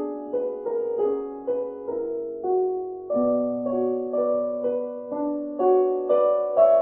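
Solo grand piano played in a slow piece, a new note or chord struck about every half second, each ringing on and fading under the next.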